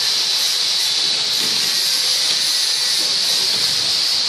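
A steady, unbroken hiss that stays at the same level throughout, strongest in the upper-middle range.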